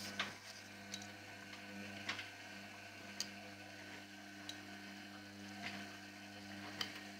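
Indesit washing machine running: a steady motor hum with a sharp tick or click roughly once a second.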